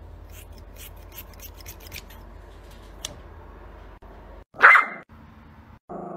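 Small scissors snipping a Yorkshire terrier's fur in a quick run of crisp snips. About three-quarters of the way in, the terrier gives one short, loud bark.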